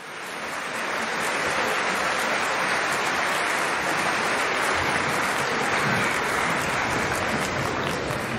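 Audience applauding, a dense steady clapping that swells up over the first second.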